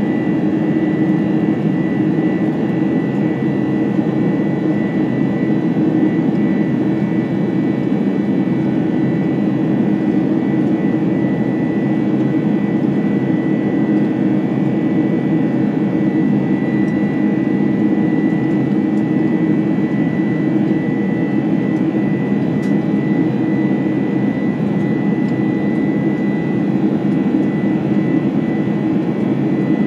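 Boeing 747-400's General Electric CF6-80C2 turbofan engines heard inside the upper-deck cabin: a loud, steady roar with a thin, steady high whine above it that holds unchanged throughout.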